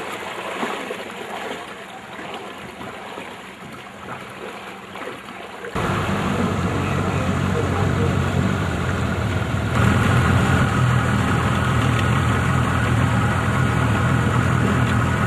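Water splashing and lapping against a boat hull. About six seconds in, the boat's engine sets in abruptly and runs steadily, growing louder about four seconds later.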